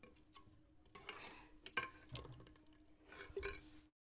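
Metal ladle stirring thin kadhi in an aluminium pot: faint scrapes and a few light clinks against the pot over a faint steady hum. It cuts off abruptly near the end.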